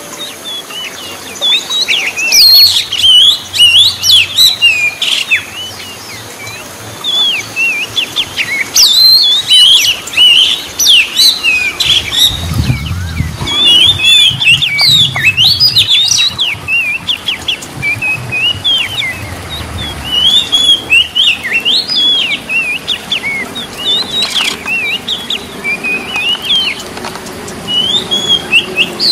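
Oriental magpie-robin (kacer) singing: a rapid, varied run of loud whistles, chirps and pitch glides with only brief pauses.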